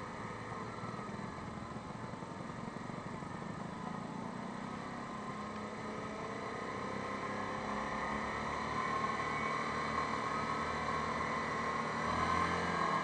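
Yamaha Grizzly 550 ATV's single-cylinder four-stroke engine running under way, its pitch gliding up and down with the throttle and getting louder in the second half.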